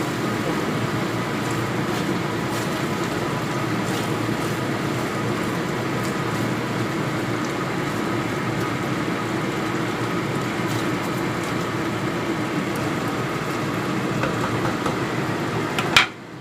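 Chicken simmering in soy sauce in a pan on the stove: a steady bubbling hiss with scattered small pops. A sharp click comes near the end, and then the sound briefly drops away.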